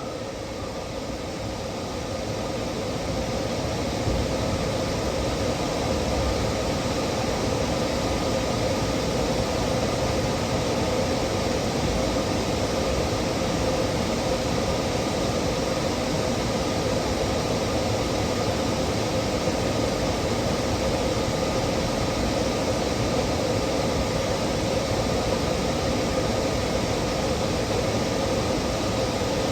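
Steady mechanical hum and hiss with a low drone, rising over the first four seconds and then holding steady.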